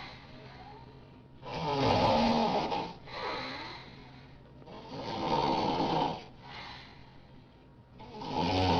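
Loud snoring: three long, rasping snores about three seconds apart, the last near the end, each followed by a quieter breath out.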